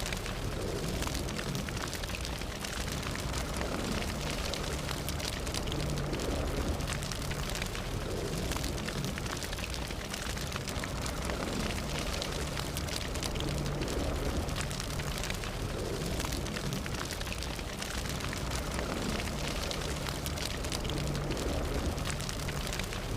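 Fire burning with steady, dense crackling and popping over a low rumble.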